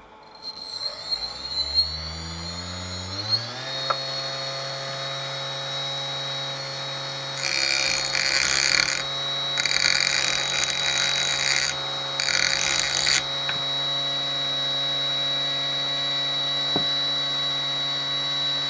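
Homemade tool-post grinder's 400 W brushless motor spinning up with a rising whine over the first few seconds, then running steadily and turning a small pink grinding stone in an ER11 collet. In the middle, a pointed hand tool is held against the spinning stone three times, each giving a harsh grinding hiss.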